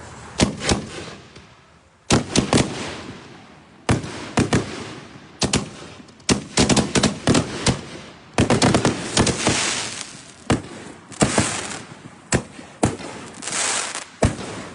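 5X reloadable canister shells firing and bursting: an irregular run of many sharp bangs, some in quick clusters, with bursts of crackling hiss in the second half.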